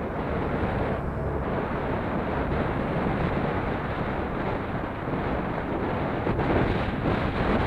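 Wind rushing steadily over the camera microphone on a moving motorcycle, with the motorcycle's engine running underneath.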